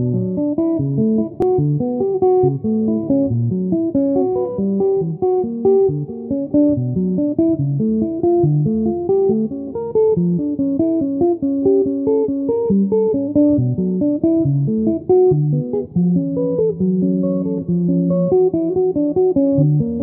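Solo electric guitar in a clean tone, a quick flowing run of plucked notes over lower bass notes, with a longer held low note near the end.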